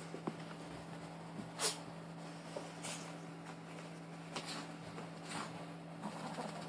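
A wet Maltese rolling and rubbing itself on a towel, with four short rushing bursts, the loudest about a second and a half in, over a steady low hum.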